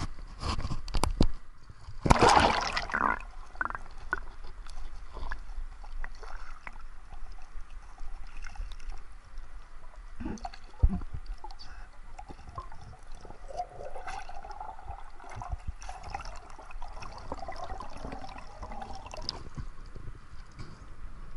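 Water splashing loudly as the camera plunges into shallow water, then muffled underwater sloshing and gurgling heard through the submerged camera, with a couple of sharp knocks about ten seconds in.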